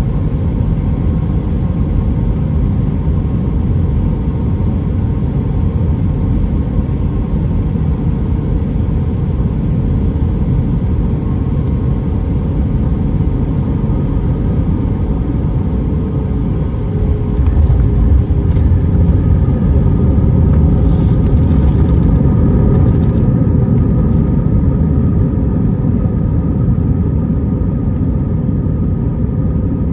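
Airbus A320 cabin noise: the steady low rumble of the jet engines and airflow, with faint steady tones over it. It grows louder about 17 seconds in.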